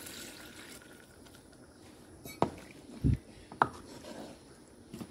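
Water pouring into an aluminium pot of fried chicken masala, the pour dying away within the first second. Then a few knocks of a spatula against the pot as the curry is stirred, the loudest about three seconds in.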